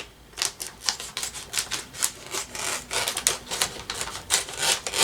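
Crinkly snack bag being cut open with scissors: a run of sharp, irregular crackling snips, several a second.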